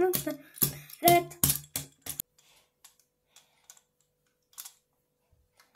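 A few short voice-like sounds, then soft scattered clicks and taps of a plastic toy being handled on the mat.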